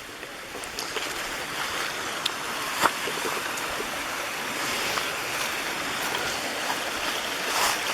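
Mountain stream rushing, a steady hiss of water that grows louder over the first second or so. A few sharp clicks sound over it, the loudest about three seconds in.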